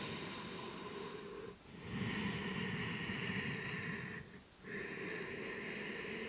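Ujjayi breathing: slow, audible breaths drawn through a slightly narrowed throat, each lasting a couple of seconds. There are brief pauses between breaths about a second and a half in and again about four and a half seconds in.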